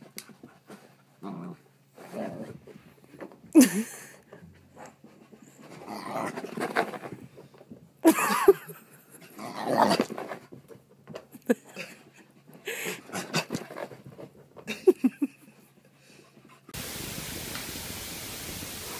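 A corgi close to the microphone makes short, irregular grumbles, whines and snuffles, a few of them loud. About two seconds before the end it cuts to a steady hiss.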